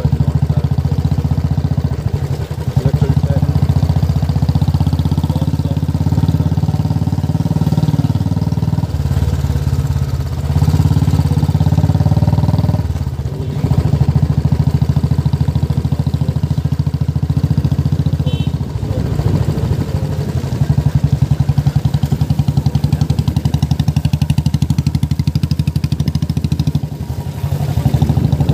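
Motorcycle engine running while riding, heard close up from the bike itself as a steady pulsing drone that eases off briefly a few times.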